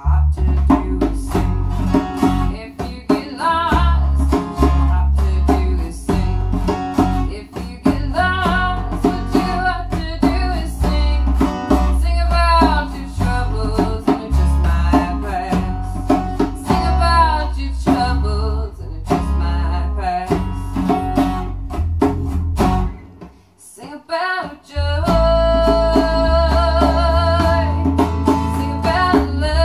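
A small acoustic band playing: a woman singing over a strummed acoustic guitar, with a djembe hand drum and a bass guitar underneath. The music briefly falls away about twenty-three seconds in, then comes back in full.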